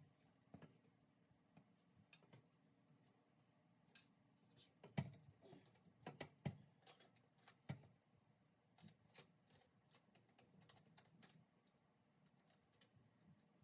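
Faint, scattered clicks and light knocks at irregular intervals, clustering about four to eight seconds in, with the loudest knock about five seconds in.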